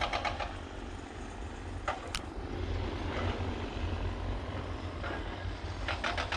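Wind buffeting the camera microphone on an exposed mountaintop: a low, fluctuating rumble, with a couple of sharp clicks about two seconds in.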